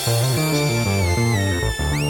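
A funky electronic beat played on an Akai MPC, with a rhythmic bass line and drum hits. Over it a high synth lead slides down in pitch, then sweeps up sharply near the end.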